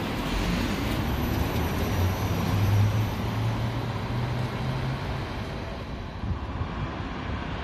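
Electric city buses at a bus stop over steady road traffic noise: a bus motor hum that rises slightly in pitch as it gathers speed, then eases off.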